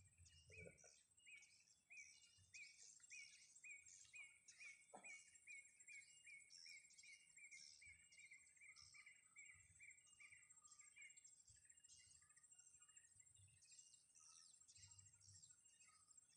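Birds chirping outdoors: one bird repeats a short chirp over and over, speeding up partway through, while other birds call in higher, quick notes. The sound is faint.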